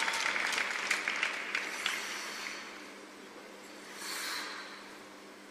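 Arena audience applauding, with scattered claps, fading out over the first two to three seconds, leaving the low steady hum of the rink. A brief hiss about four seconds in.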